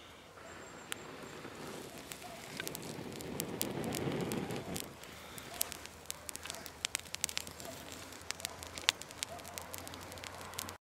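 A dry-grass tinder bundle is blown on to nurse a char-cloth ember into flame; the blowing swells to its loudest about four seconds in. The bundle then catches, and the burning grass crackles with many sharp pops.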